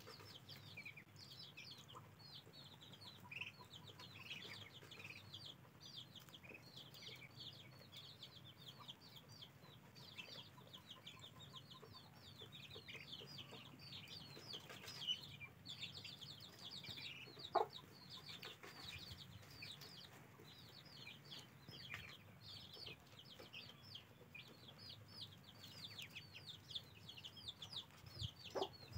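A group of young ducklings peeping without pause: a faint, fast chatter of short, high, downward-slurred peeps. A louder short sound stands out about two-thirds of the way through, and another comes near the end.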